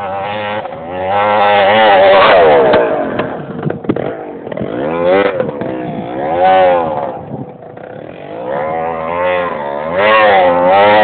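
Honda CRM250R single-cylinder two-stroke engine running with its silencer removed, its revs rising and falling several times in quick blips and swells.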